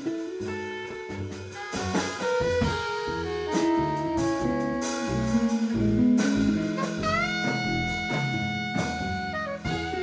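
Instrumental jazz from a small band of guitars, saxophone, bass and drums. Notes move over a walking low line, and about seven seconds in a long note slides up into pitch and is held.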